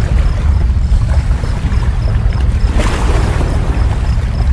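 Wind buffeting the microphone, with the sea washing against the rocks and a brief swell of hiss about three seconds in. Under it a faint, even ticking, about three a second, from the spinning reel as it is wound.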